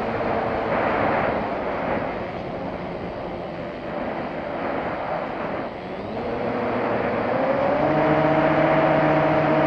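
Motor and propeller of a small model airplane droning, heard from its onboard camera with wind rushing past. The motor's pitch rises about three-quarters of the way through and holds higher.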